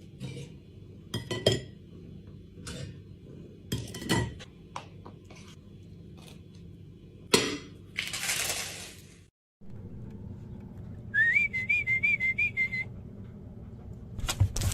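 A series of sharp glassy clinks and knocks, a brief hissing rush, then after a break a short warbling high-pitched whistle.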